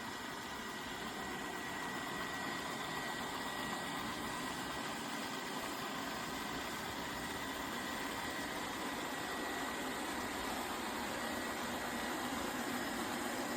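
A machine running steadily: an even rushing noise with a faint high whine held on one pitch.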